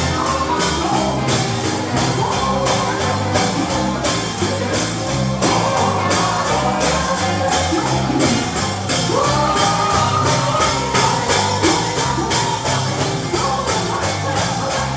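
Live gospel music: a band playing a steady, quick beat with bass, and a voice singing over it.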